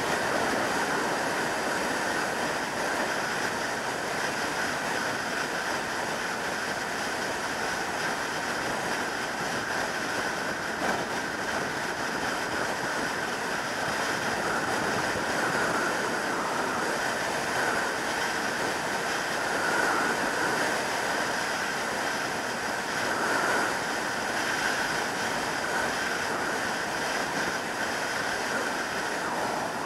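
Steady rush of wind and road noise from a motorcycle cruising at motorway speed, the 2003 Yamaha YZF600R Thundercat's inline-four engine running under the wind.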